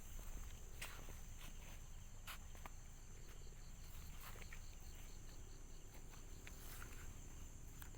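Insects, crickets among them, keep up a steady high-pitched drone, with a short run of evenly spaced chirps in the middle. Faint scattered clicks sound under it.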